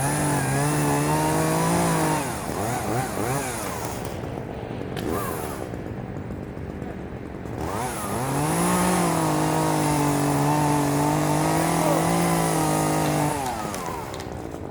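Chainsaw engine held at high revs for about two seconds, then running lower and unevenly, then held at high revs again for about five seconds from roughly eight seconds in, before dropping back near the end.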